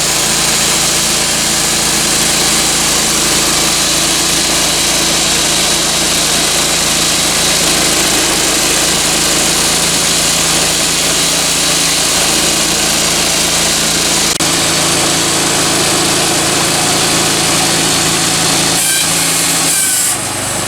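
Woodland Mills HM126 portable bandsaw mill, its small gasoline engine running steadily while the band blade saws through a log. The engine note shifts about fourteen seconds in, and the sound dips briefly just before the end.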